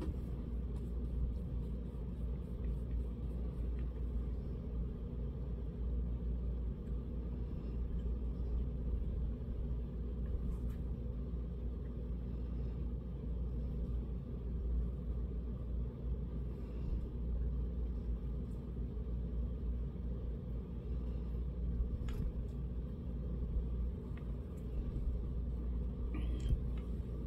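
Steady low rumble, with a few faint short clicks scattered through it.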